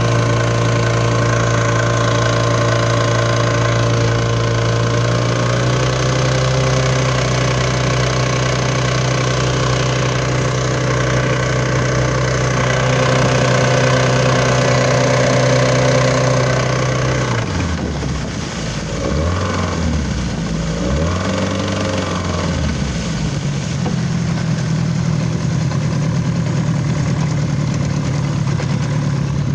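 Yamaha 30HWCS two-stroke outboard motor running with a knock. It holds a steady speed, then a little over halfway through its speed drops and picks up twice before settling at a slightly higher steady speed.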